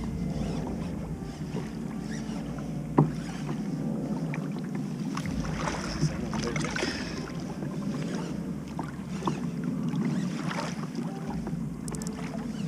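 Choppy sea water sloshing and slapping against a kayak's hull, with a sharp knock about three seconds in and another about six seconds in.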